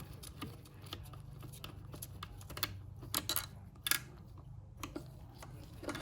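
Metal parts and hand tools clicking and clinking as a Honda K-series five-speed transmission is taken apart, with a few sharper clinks a little past the middle, over a steady low hum.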